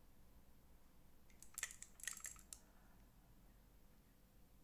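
Near silence broken by a quick cluster of light clicks and taps, about one and a half to two and a half seconds in, from a handheld UV curing torch being moved and repositioned.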